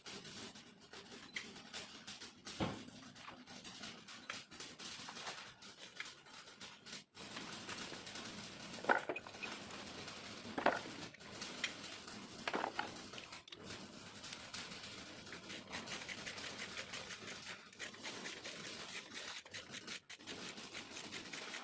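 Metal tools and engine parts clinking and knocking at irregular intervals, with a few brief metallic rings, while the truck diesel engine is being assembled by hand.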